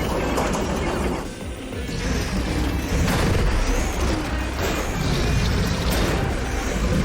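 Cartoon soundtrack: music over mechanical clattering and crashing sound effects, with a steady low rumble.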